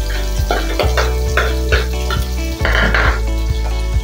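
Boiled beef and sliced onions frying in a stainless steel pot, sizzling as a metal spoon stirs them, with a louder burst of sizzle and scraping about three seconds in. Background music with a steady beat plays over it.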